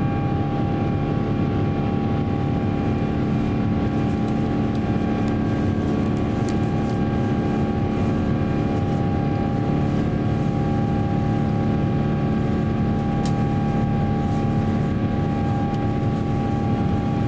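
Cabin noise inside an Airbus A350-900 climbing after takeoff: the steady drone of its Rolls-Royce Trent XWB engines and the airflow, with several steady tones over a deep rumble.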